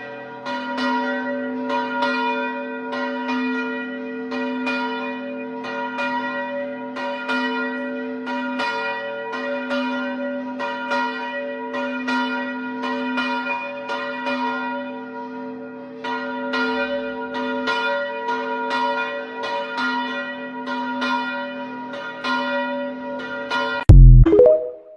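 Parish church bells, including a new esquila, ringing in rapid repeated strokes about two a second, with a lower bell's tone lingering underneath; the strokes ease briefly past the middle and then pick up again. A loud low thump comes near the end.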